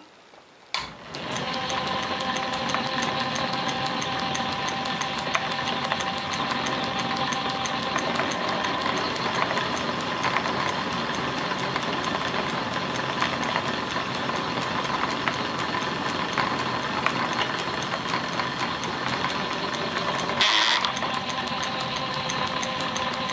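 Belt-driven Canedy-Otto No. 24 drill press, dating from about 1902, starting up about a second in and then running steadily with a hum of several tones. A 7/8-inch Forstner bit bores a pocket into a rubber hockey puck. There is a brief, louder, hissing scrape about twenty seconds in.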